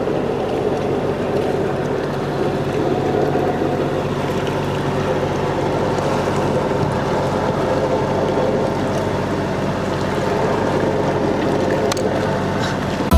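Steady running noise of a sailboat under way, with a low engine drone beneath a rush of wind and water.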